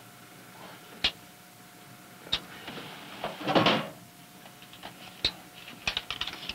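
Single sharp clicks of switches and controls on a submarine radio transmitter as it is switched on, with a short rushing burst about three and a half seconds in and a faint steady hum underneath. Rapid, irregular clicking starts near the end.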